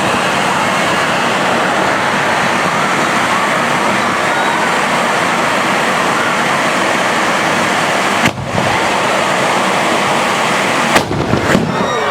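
Tezutsu handheld bamboo-tube firework spewing sparks with a loud, steady rushing hiss, which breaks off briefly about eight seconds in. Near the end comes a single loud bang, the tube's bottom blowing out in its finale, followed by a few smaller cracks.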